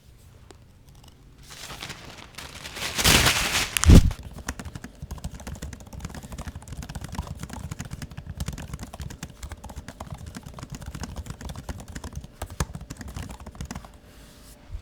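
MacBook Air packaging being handled and opened: a loud rush of noise builds about two seconds in and ends in a sharp hit about a second later, followed by continuous rustling with many small clicks.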